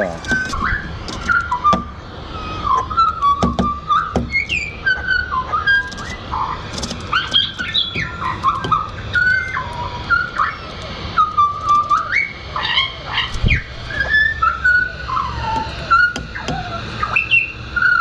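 Pied butcherbirds singing together: a continuous run of clear, fluting whistled notes, some held steady and some sliding up or down, with several voices overlapping.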